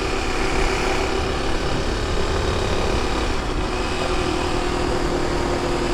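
Motorcycle engine running steadily while riding, a constant hum with a faint drop in pitch near the end.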